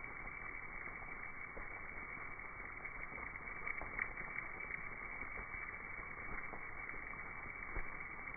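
Steady rushing hiss of a Mexican free-tailed bat colony streaming out of its cave, with faint scattered ticks and clicks, heard in slowed-down slow-motion audio.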